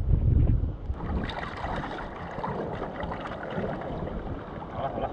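Wind buffeting the microphone with a low rumble for about a second, then a steady rushing hiss of outdoor shore noise.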